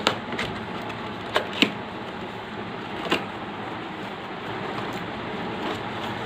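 A cardboard box being handled and opened: a few sharp taps and knocks, the loudest two in quick succession about a second and a half in, over a steady background hiss.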